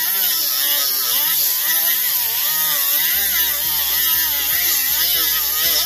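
Handheld die grinder with a small sanding disc grinding a steel A-arm; its whine keeps rising and falling in pitch as the disc is pressed against the metal, over a steady hiss.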